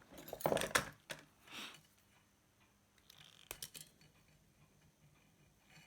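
Insulation being stripped from two thin purple wires with a cutting tool: a few sharp snips in the first second, a short rasp, and one more snip about three and a half seconds in.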